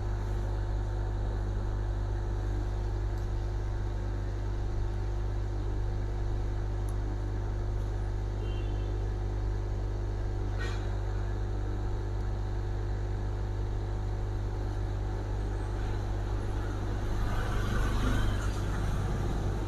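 Hot air rework station blowing with a steady low hum, heating a TV board to desolder its audio amplifier IC. A faint click comes about halfway through, and the sound grows a little louder near the end.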